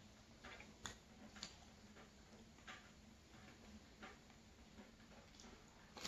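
Near silence of quiet eating: a few faint, scattered wet clicks and smacks as toast is dipped in hot chocolate and chewed, with the noise of a bite into the dipped toast starting right at the end.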